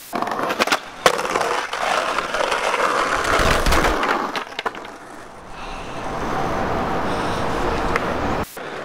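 Skateboard wheels rolling over rough asphalt with a steady gritty noise, broken by several sharp clacks of the board in the first half.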